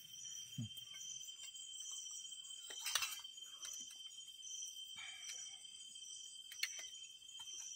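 Night forest insects trilling steadily at several high pitches, with light clinks of spoons on steel plates, one about three seconds in and another near the end.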